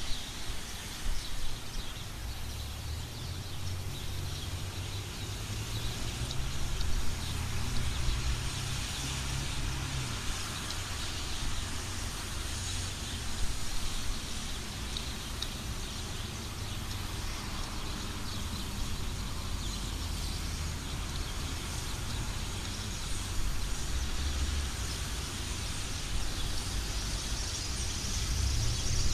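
Street traffic on a wet road: cars passing with a low engine rumble that swells and fades, over a steady hiss of tyres on wet pavement.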